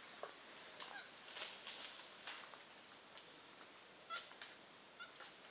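Steady high-pitched insect chorus, with a few faint short chirps about a second in and around four seconds.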